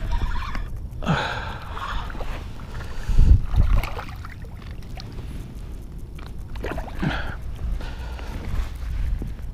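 Small largemouth bass thrashing and splashing at the surface as it is reeled in to the bank, loudest a little past three seconds in, over a low wind rumble on the microphone.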